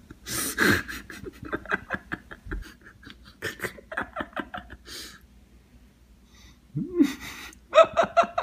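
A person laughing hard in runs of short, rapid bursts, with gasping breaths between them.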